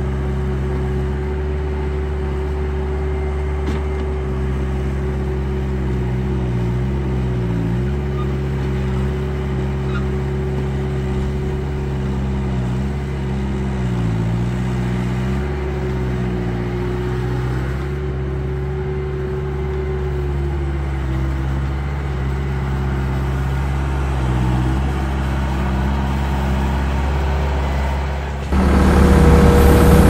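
Heavy construction-machine engine running steadily, its pitch dipping briefly a few times as if loaded. About a second and a half before the end it switches to a louder engine sound.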